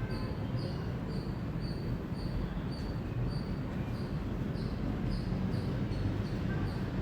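Indian palm squirrel giving its repeated high chirping call, about two short chirps a second in an even rhythm, over a steady low background rumble.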